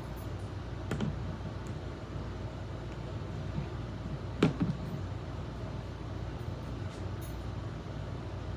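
A few light clicks and knocks, the loudest a close pair about four and a half seconds in, over a steady low hum; they fit handling the microwave's box and packaging as it is opened with a butter knife.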